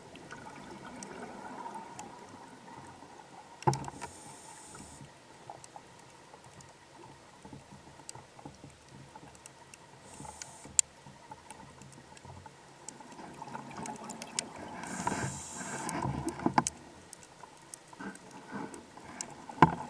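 Scuba diver breathing through a regulator underwater: three breaths about five to six seconds apart, each with a short hiss, the last followed by a longer bubbling exhale, with scattered sharp clicks in between.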